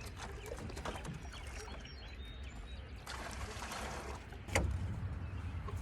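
Handling noises as a caught bluegill is put into a live well: water sloshing and small knocks, with one sharp knock about four and a half seconds in, over a steady low rumble.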